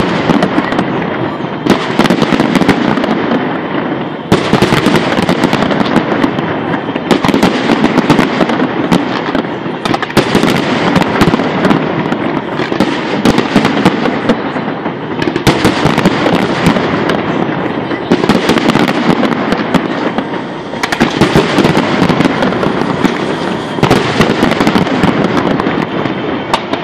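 Aerial fireworks display: a dense, continuous barrage of bangs and crackling from bursting shells and comets. It eases briefly a few times.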